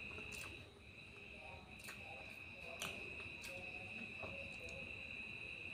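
A steady high-pitched insect trill that breaks off briefly twice and stops near the end, with a few faint crisp clicks.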